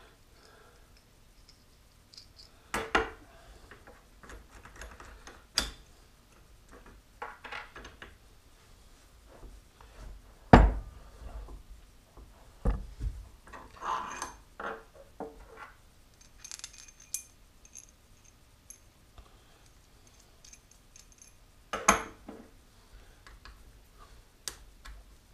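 Steel parts of a dividing head being handled on a workbench: long bolts drawn out and set down, with scattered metallic clinks and knocks in between quiet gaps, the loudest knock about ten seconds in.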